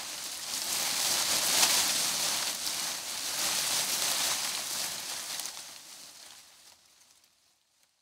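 A steady, bright rain-like hiss that swells in the first two seconds, then fades away to silence about a second before the end.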